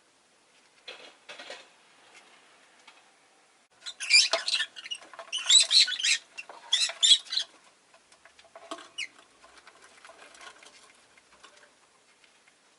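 Rosy-faced lovebird chirping and chattering in quick high bursts, a short burst about a second in, the loudest run from about four to seven and a half seconds in, and a brief call near nine seconds.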